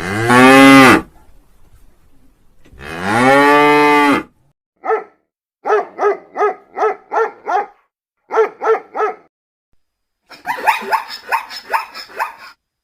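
A cow mooing twice in long calls. Then a dog barking in quick runs of short barks, about three a second, with a denser, rougher run near the end.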